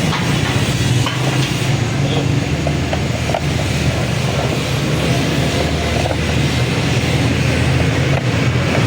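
Steady low mechanical hum, like a running engine or machine, with a few faint small clicks and taps.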